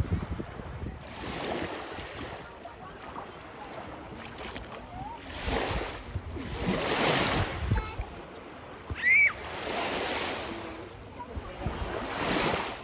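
Small sea waves washing in over a shallow sandy shore, the wash swelling and fading every couple of seconds. About nine seconds in, a short high-pitched call rises and falls and is the loudest sound.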